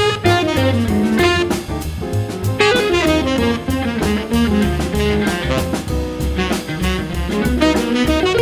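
Jazz blues with a saxophone soloing in quick running lines over bass and drum kit.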